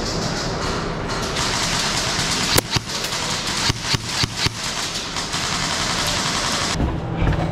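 Airsoft rifle firing a quick string of about seven sharp single shots over about two seconds, over a steady rushing background noise.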